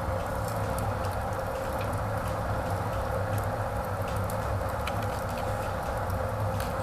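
Wood fire burning in a fireplace's cast-iron firebox: a steady rush of flame drawn up by a strong draft, with a low rumble and a few sharp crackles.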